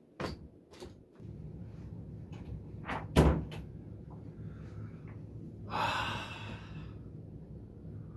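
Knocks and thumps of things being handled and set down in a small room, the loudest a heavy thump about three seconds in, then a brief rustle of fabric near six seconds, over a steady low hum.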